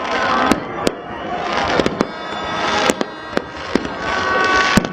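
Fireworks going off: about nine sharp bangs at irregular intervals, with whistling tones and rising hiss between them.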